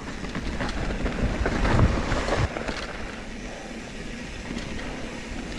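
Mountain bike descending a dirt singletrack: tyres rolling over dirt and gravel with scattered clicks and rattles of the bike over bumps, under low wind noise on the microphone. The clatter is busiest about two seconds in and eases to a quieter roll after about three seconds.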